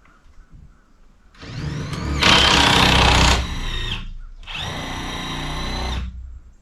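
Circular saw starting about a second and a half in, its motor whine rising quickly, then cutting loudly for about a second. It runs again in a second, steadier burst near the end.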